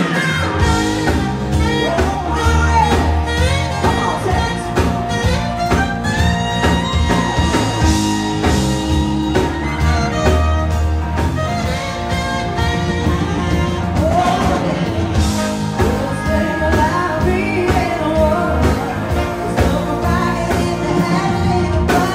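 Live band playing a song: a singer over a steady bass line, drum kit and other instruments, loud and without a break.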